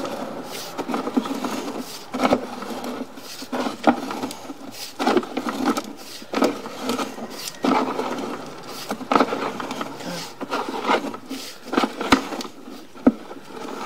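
Sewer inspection camera's push cable being fed down the drain line: irregular knocks, clicks and scraping as the rod and camera head move along the pipe.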